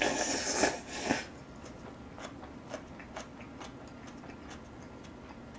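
A mouthful of Chapagetti black-bean noodles slurped loudly for about a second, then close-up chewing with small wet clicks and smacks.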